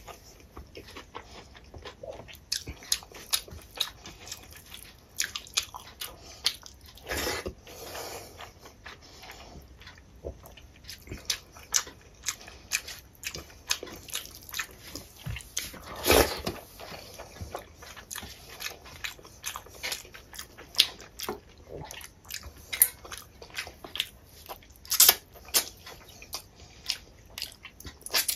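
Close-up mouth sounds of eating rice and dal by hand: wet chewing and lip smacks, heard as many short sharp clicks, with two louder, longer bursts partway through. Fingers squishing rice against a steel plate add to the sound.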